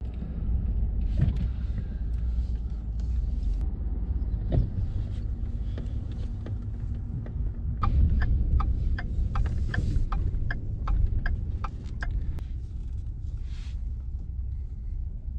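Car driving on a highway, heard from inside the cabin: a steady low rumble of engine and road. Past the middle a regular ticking, about two or three ticks a second, runs for about four seconds.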